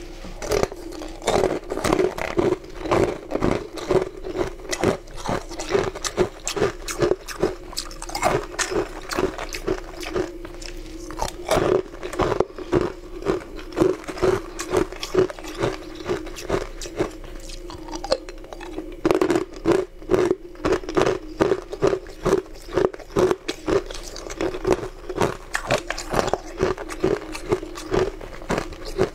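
Chunks of ice being bitten and chewed: many sharp, crisp crunches coming in quick clusters, over a steady low hum.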